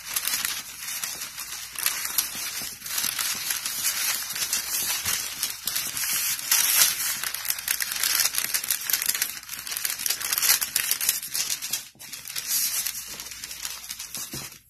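Parchment paper crinkling and rustling as dough is rolled flat between two sheets with a wooden rolling pin and pressed by hand, in a continuous run of crackly rustles.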